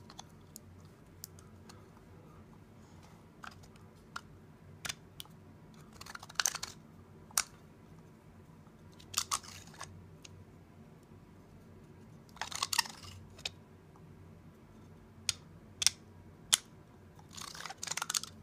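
3D-printed PLA ratchet wrench being worked back and forth on a metal socket: scattered sharp plastic clicks, and four short bursts of rapid ratchet clicking. The ratcheting is imperfect, which the maker puts down to a captive pawl that may have cracked.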